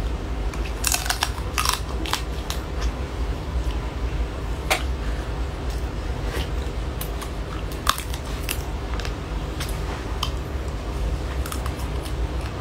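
Close-up crunching and biting on sauce-coated crab shell: irregular sharp cracks, some spaced close together, over a steady low hum.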